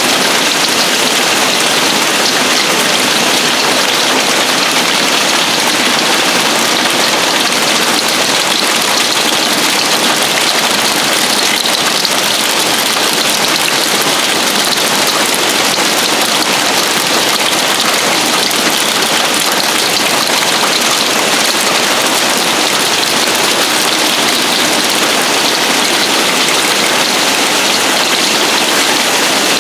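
Heavy hail storm coming down hard on a roof and the ground: a loud, steady, dense patter with no break.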